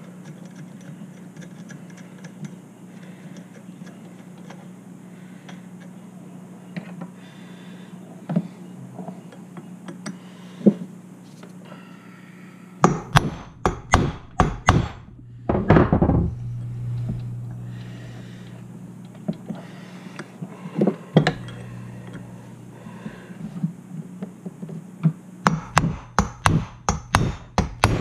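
A 16 oz claw hammer striking a prick punch set in the end of a Stihl 034 chainsaw's crankshaft, in quick runs of sharp taps about halfway through and again near the end. The taps send shocks into the crankshaft to jar loose a flywheel that is stuck fast on it.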